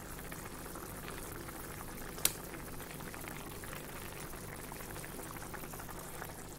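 Thin curry gravy boiling hard in a wok, a steady bubbling and popping, with one sharp click about two seconds in.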